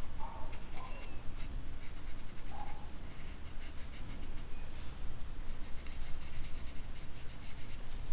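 Paintbrush strokes on paper, a soft intermittent scratching, over a low steady hum.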